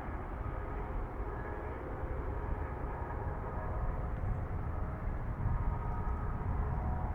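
Aircraft engine noise: a steady low rumble with a faint, even whine over it.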